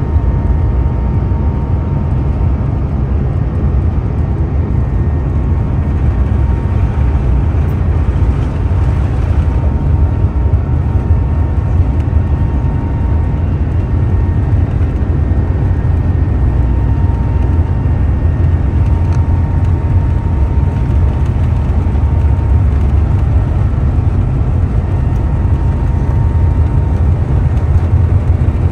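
Cabin noise of an Airbus A350-900 during takeoff: its Rolls-Royce Trent XWB engines and the airflow give a loud, steady, deep rumble with a faint thin whine above it.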